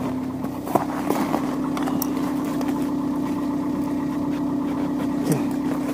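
A car engine idling steadily, with a few light clicks over it.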